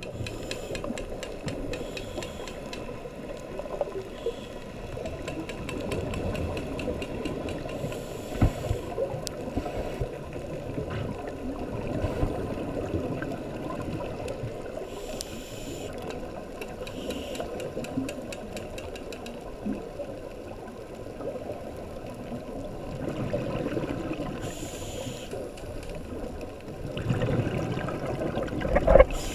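Underwater sound on a scuba dive: a steady muffled wash of water noise, with a diver's regulator hissing at intervals of several seconds and surges of exhaled bubbles rumbling past, the loudest near the end.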